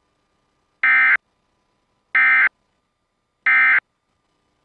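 Three short, identical buzzy data bursts, each about a third of a second long and about 1.3 s apart. This is the SAME digital End of Message code (NNNN) that closes an EAS Required Weekly Test on NOAA Weather Radio.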